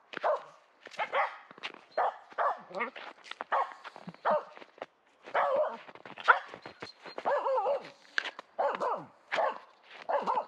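Finnish Spitz barking at a squirrel up in a tree, a rapid string of short barks about two a second with a brief pause a little before the middle.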